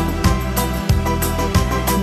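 Instrumental pop music with a steady beat and held melody notes, no singing.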